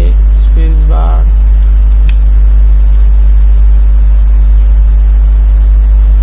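Loud, steady low electrical hum, mains hum picked up in the recording, with a short vocal sound about a second in and a faint click about two seconds in.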